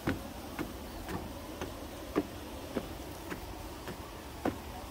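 Footsteps at a steady walking pace, about two short taps a second, over a faint low rumble.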